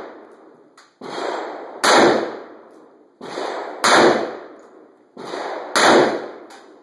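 Big-bore magnum revolver firing three very loud shots about two seconds apart, each trailing off in a long echo. A weaker bang comes just before each shot.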